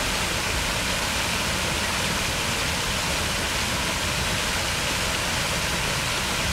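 Large ornamental fountain jet spraying and splashing into its basin: a steady, even rush of falling water.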